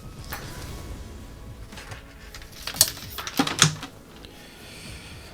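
A handful of sharp clicks and clattering knocks from small items being handled on a workbench, the loudest cluster about three to three and a half seconds in.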